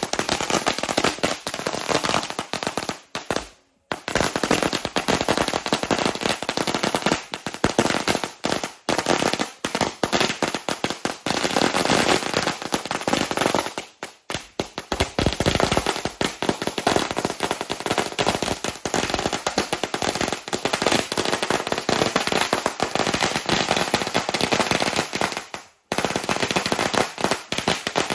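Ground fireworks going off in a dense, rapid run of loud cracks and bangs, with three short breaks.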